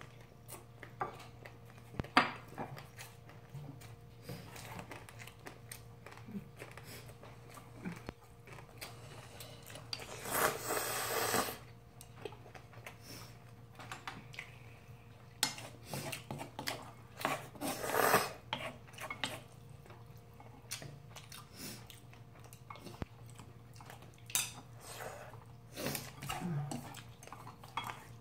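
Chopsticks clicking and knocking against ceramic bowls and a frying pan while noodles are eaten, with scattered short clinks throughout and two longer noisy rushes, about ten and eighteen seconds in.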